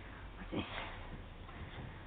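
A black Labrador puppy sniffing briefly and faintly about half a second in.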